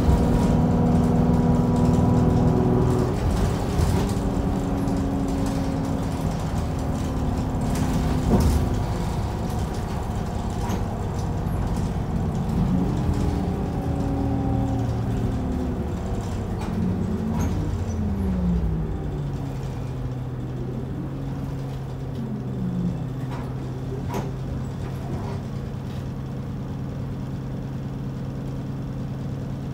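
Isuzu Erga city bus heard from inside the cabin, its four-cylinder turbo diesel running with the pitch stepping up and down through the gears. There is a sharp thump about eight seconds in. The engine note falls off past the middle and then settles into a steady low hum.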